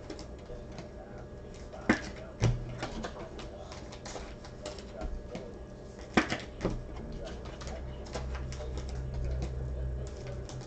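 Trading cards and their packs being handled: scattered light clicks and rustles, with two sharper knocks about two and six seconds in.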